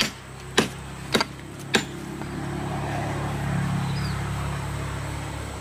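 A machete chopping into a palm trunk: four sharp strikes about every 0.6 s. After them, a low engine hum swells and fades, like a vehicle passing.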